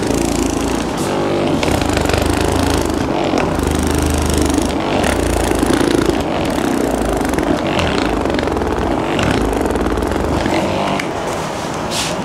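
Handheld percussion massage gun running, its motor buzzing steadily as it is pressed against a person's lower back.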